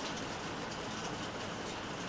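Steady rainfall, an even hiss with small drop ticks scattered through it.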